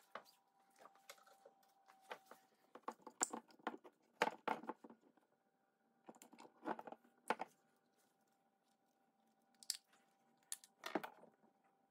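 Scattered clicks and light metal knocks from a motorcycle brake caliper being worked on at a bench, with short runs of rapid clicking from a hand socket ratchet turning a bolt on it. The sounds come in a few clusters with quiet gaps between.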